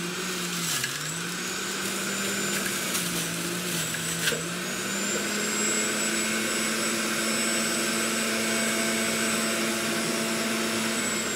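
Electric juicer running loudly, juicing peeled orange pieces. The motor's pitch dips several times in the first four seconds as the fruit is pushed down the chute and the motor takes the load, with a few light knocks. It then runs steady and higher as the juice flows out.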